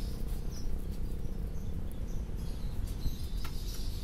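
Small local finches (munias) giving short high chirps now and then, over a steady low rumble.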